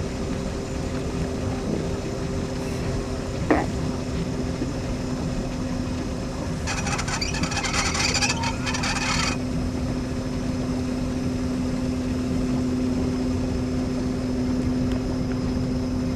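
Motorboat engine idling with a steady drone. A single sharp knock comes about three and a half seconds in, and a couple of seconds of hissing noise come a little after the middle.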